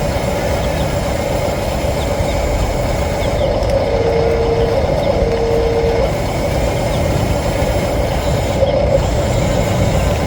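Steady heavy-vehicle engine rumble, with two long low beeps of about a second each, one after the other, around the middle.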